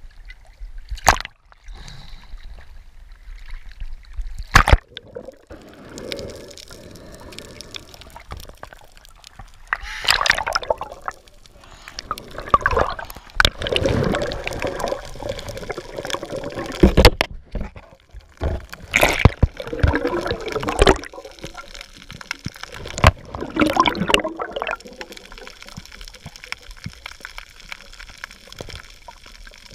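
Water sloshing and gurgling around a camera at the sea surface and underwater, with uneven bursts of bubbling every few seconds and several sharp clicks.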